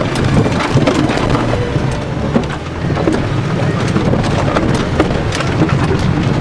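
Four-wheel-drive pickup running, heard from inside the cab: a steady low engine drone under a dense clatter of small rattles and knocks as the truck bounces over rough ground.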